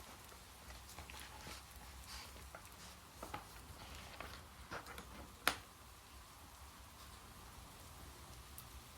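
Faint rain with scattered drips and taps, one sharper click about halfway through.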